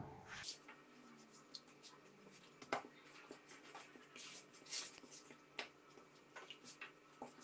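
Faint, scattered soft rubbing and light taps of hands pressing and moving discs of yeast dough on a floured silicone pastry mat.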